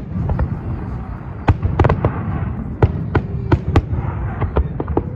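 Fireworks display: a rapid, irregular run of sharp bangs from bursting shells over a steady low rumble, with short spells of crackling between them.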